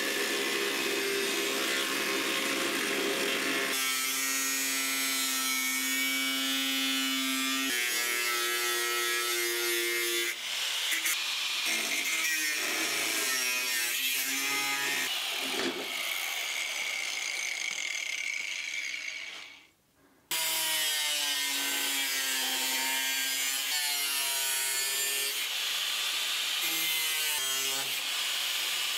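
Angle grinder with a thin cutoff wheel cutting through sheet steel, its motor pitch shifting as the wheel bites along the cut. The sound breaks off briefly about twenty seconds in, then the cutting resumes.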